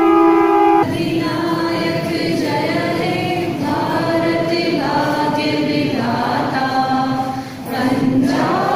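A steady, horn-like blast that stops about a second in, then a group of voices singing together.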